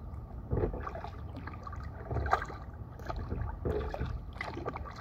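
Kayak paddle blades dipping and splashing in river water, stroke after stroke about once a second, over a low rumble.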